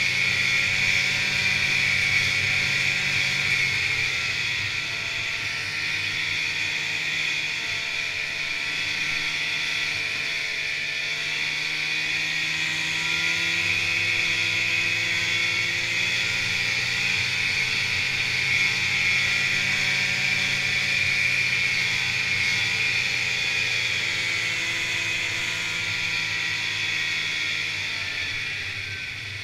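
Snowmobile's two-stroke engine running at trail-riding speed, a steady drone whose pitch drifts slightly with the throttle, over a steady hiss. The engine eases off a little near the end.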